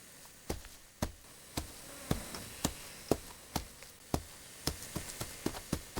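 Foley footstep sounds played in sync with picture: steady walking steps, about two a second, with a few quicker, lighter steps near the end.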